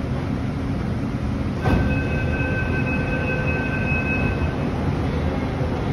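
Pune Metro train heard from inside the car: a steady low rumble, a single knock about a second and a half in, then a steady high two-note tone held for nearly three seconds.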